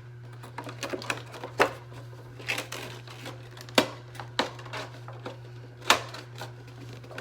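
Irregular clicks and knocks of a toy's cardboard box and plastic packaging being handled, with two sharper knocks in the second half. A steady low hum runs underneath.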